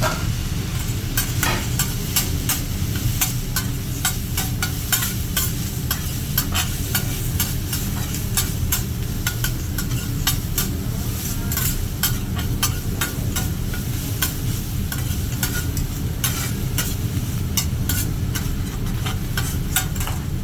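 Food sizzling on a teppanyaki griddle while metal spatulas clatter and scrape on the steel plate in many sharp, irregular clicks, over a steady low hum.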